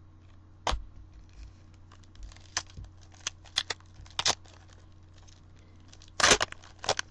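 Trading cards and booster-pack wrappers being handled and flipped through: a string of short rustles, snaps and clicks, with the loudest cluster about six seconds in.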